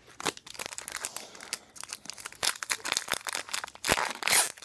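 Foil wrapper of a Pokémon trading-card booster pack crinkling and crackling as it is picked up and handled. The crackling gets louder near the end as both hands pull at the pack to tear it open.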